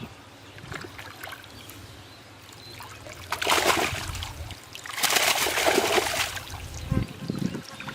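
Water splashing in two loud bursts, the first about three seconds in and the second about five seconds in, over a faint trickle of water.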